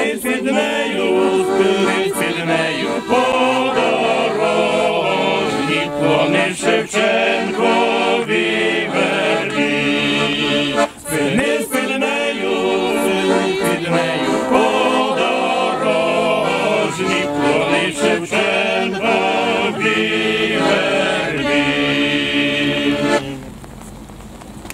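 A small group of singers singing a slow Ukrainian song together. The singing stops about 23 seconds in, leaving a much quieter outdoor background.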